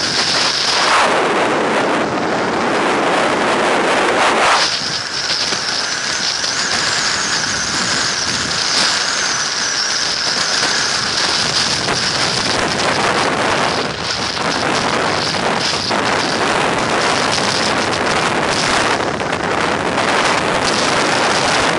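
Storm-force mountain wind battering the action camera's microphone in heavy, continuous gusts. From a few seconds in, a high steady whistle runs over the roar.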